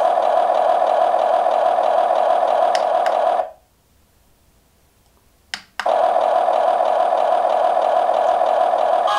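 Simulated diesel engine sound from the Huina 1580 RC excavator's built-in sound module, played through its small speaker as a steady, tinny drone. It cuts out a little over three seconds in, and after about two seconds of near silence a click is heard and the engine sound starts again.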